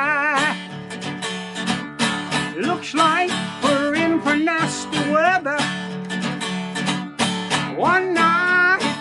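Acoustic guitar strummed in a steady rhythm, with a wavering melody line held over it at several points.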